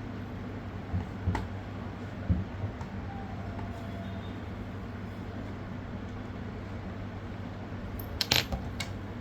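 Small metal screws and a precision screwdriver clicking and clinking while case screws are taken out. A few light clicks come early, then near the end a quick run of ringing metallic clinks as the tiny screws hit a hard surface, all over a steady low hum.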